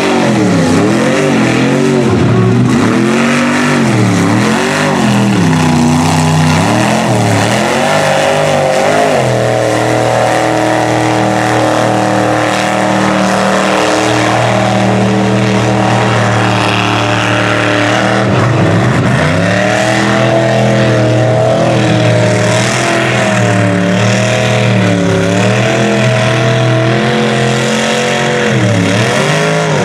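Engine of a lifted mud truck on huge tires revving hard as it plows through deep mud. For the first several seconds the pitch swings up and down with the throttle, then it holds high and steady for about eight seconds, drops briefly, and climbs and wavers again.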